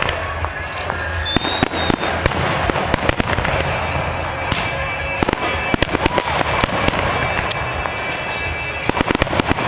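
Aerial fireworks going off in quick succession: a dense run of sharp bangs and crackles over a steady rumble, thickest in a burst of reports near the end.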